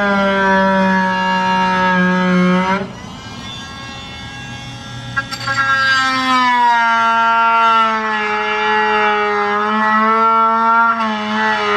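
Corded power drill running at full speed with a steady whine. It slows to a lower, quieter hum for about three seconds, then speeds up again and runs on with its pitch slowly falling.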